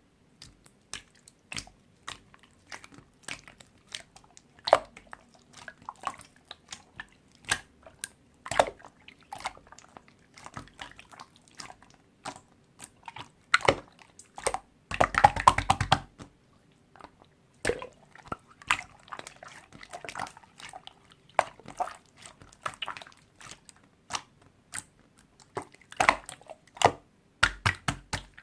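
Slime being pressed, folded and stretched by hand, giving irregular sticky clicks and pops, with a dense run of crackling about halfway through.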